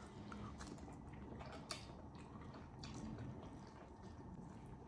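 Faint sounds of eating ramen noodles: soft wet chewing and small clicks of spoons, with one sharper click just under two seconds in.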